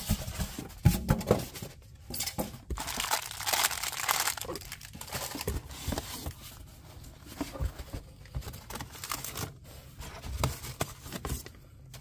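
Packing being handled: a styrofoam insert and a fabric carrying bag lifted out of a cardboard box, with irregular rustling and scraping and a few sharp knocks, loudest about a second in.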